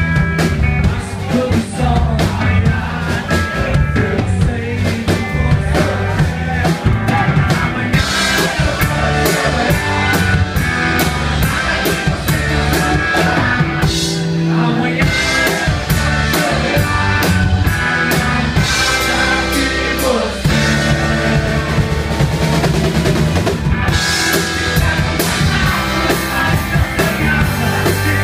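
Rock band playing live: electric guitar, bass guitar and drum kit. The cymbals get busier about eight seconds in and again near the end, with a brief break in the low end around the middle.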